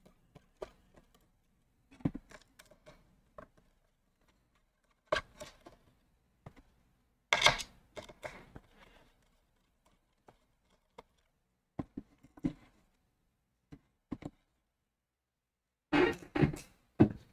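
Scattered small clicks, taps and knocks of a precision screwdriver and hands working on a laptop motherboard, undoing and lifting off the cooling assembly, with louder knocks about seven seconds in and near the end.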